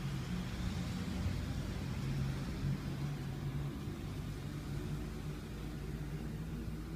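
Steady low machine hum with a rumble underneath, holding an even pitch throughout.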